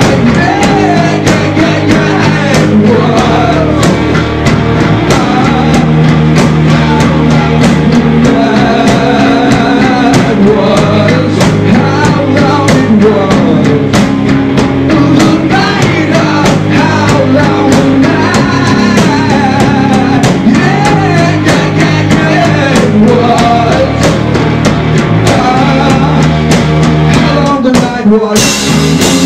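Rock song played live: electric guitar and drum kit with a singing voice, loud and continuous, with a brief break in the sound near the end.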